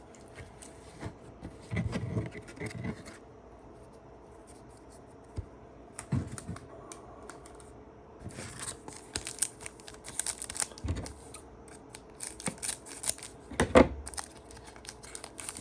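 Trading cards and a foil card-pack wrapper being handled: rustling and crinkling with a few soft knocks, getting busier and more continuous in the second half. The loudest knock comes near the end.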